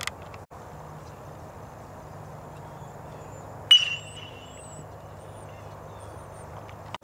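A metal baseball bat striking a pitched or tossed ball once, about halfway through: a sharp ping with a short ringing tone, over a steady background hum.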